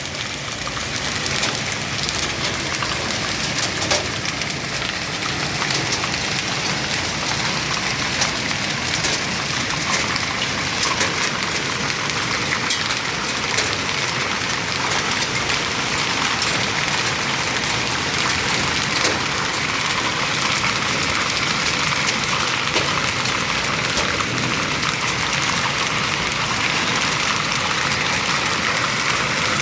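Heavy hailstorm: a steady hiss of heavy rain, with many sharp ticks of hailstones striking surfaces scattered through it.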